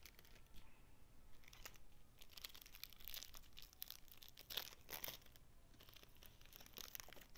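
Foil wrapper of a Topps baseball card pack crinkling and tearing as it is opened, in faint, rapid crackles that start about a second and a half in.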